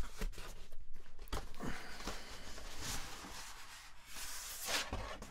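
Cardboard mailer box being torn open by hand along its perforated tear strip and the flap pulled up: tearing and scraping cardboard with a few knocks, loudest in two stretches about two and four and a half seconds in.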